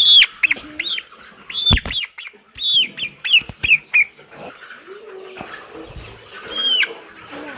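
Seven-week-old chickens peeping: a quick run of loud, high, arching peeps over the first four seconds and one more near the end. A single thump sounds about two seconds in.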